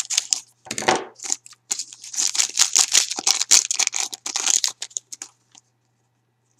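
Scissors cutting across the top of a foil trading-card pack, then the foil wrapper crinkling loudly as it is pulled open and the cards are slid out. The crinkling stops about five seconds in.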